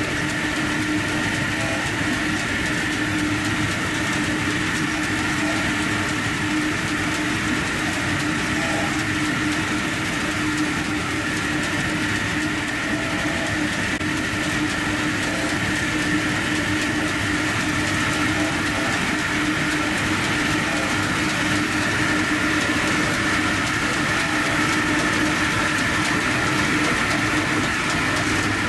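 Large circular sawmill blade spinning at speed without cutting: a steady mechanical whine over a hum, unchanging throughout.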